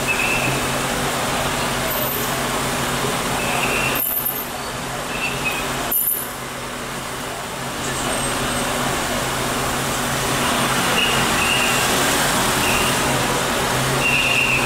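Steady hiss of rain and wet-road traffic in a street, with a low hum under it and short high beeps now and then. The sound dips briefly about six seconds in.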